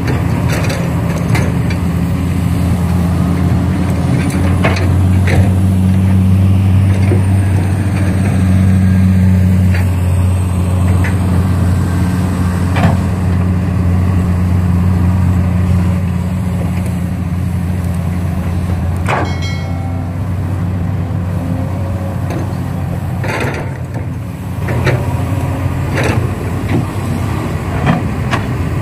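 A vehicle engine running with a steady low drone, with scattered sharp clicks and knocks over it.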